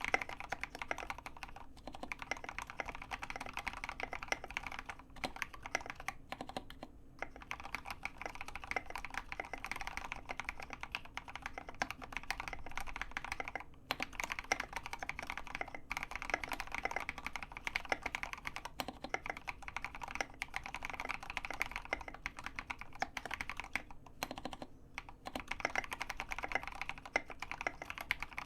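Continuous fast typing on a custom EO87 mechanical keyboard with lubed Gateron Yellow linear switches on 70g springs, an acrylic plate and SA keycaps: a dense stream of keystroke clacks with a few brief pauses.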